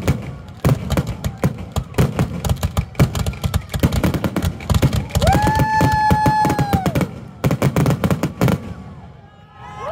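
Fireworks finale: aerial shells bursting in a rapid, dense barrage of cracks and booms, thinning out near the end. A long high held tone sounds over the bursts about halfway through.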